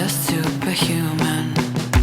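Background music: a pop song with a steady beat.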